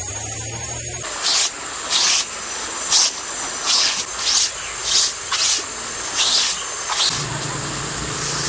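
Hand brush sweeping across a tent's fabric groundsheet: about ten short, quick swishing strokes, roughly one every two-thirds of a second, starting about a second in.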